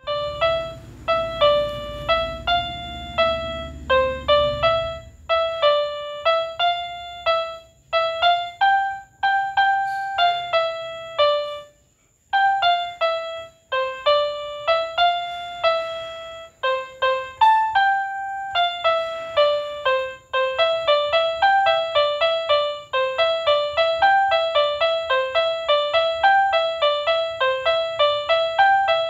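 61-key electronic keyboard playing telolet bus-horn tunes: quick phrases of a few short notes, repeated with brief pauses between them. A low rumble runs under the first five seconds.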